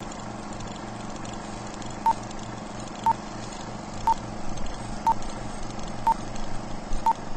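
Film-leader countdown beeps: short beeps at one pitch, once a second, six in all, starting about two seconds in. Under them runs a steady hiss with a low hum.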